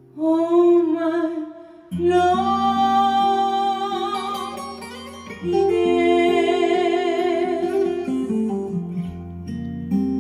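A woman sings long, wavering held notes with a vibrato, accompanied by an acoustic guitar playing chords. Her voice drops out near the end, leaving the guitar playing on.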